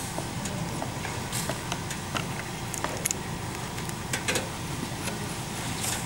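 A steady machine hum fills the background, with a few light clicks and scrapes as cut particle board panels are lifted and sawdust is brushed by hand.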